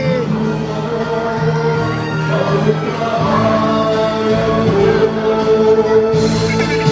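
Music with singing, including a long held sung note in the second half.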